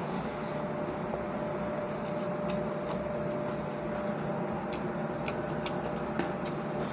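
A person eating rice with the hand: soft chewing and handling sounds with a scatter of small sharp clicks from the mouth and fingers, over a steady background hum with a faint steady tone.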